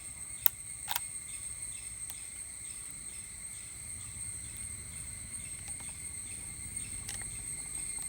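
Crickets chirping steadily in a high, pulsing drone, with a sharp click about half a second in, another just after, and a fainter one near the end.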